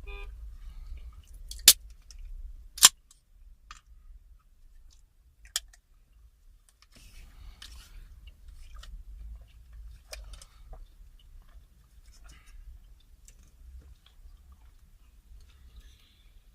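Close-miked eating sounds: soft chewing and mouth noises while rice pudding is eaten. A few sharp clicks stand out, the two loudest about two and three seconds in.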